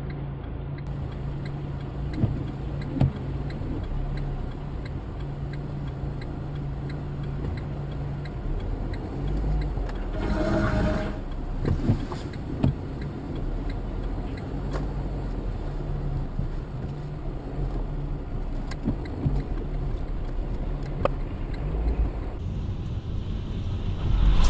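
Steady low drone of a car's engine and road noise heard from inside the cabin through a dashcam, with faint scattered clicks. About ten seconds in, a car horn sounds for about a second.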